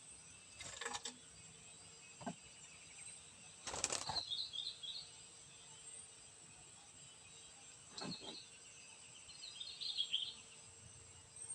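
Rainbow lorikeet flapping its wings in three short bursts, with clusters of short high chirps after the second and third.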